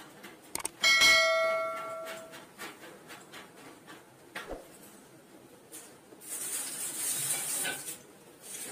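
A metal plumbing tool strikes a pipe fitting about a second in and rings briefly like a small bell. Small clicks of the tool being handled follow, and a rustling hiss comes from about six to eight seconds in.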